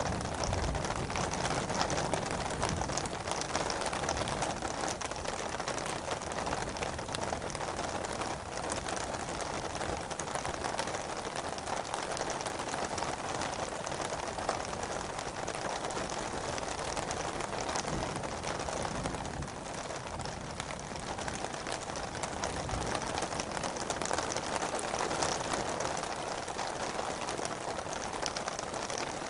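Steady rain falling: an even, unbroken hiss with many scattered small drop taps.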